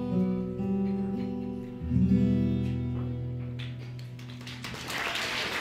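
Acoustic guitar playing the song's final strummed chords, struck twice and left to ring out and fade. Audience applause starts near the end.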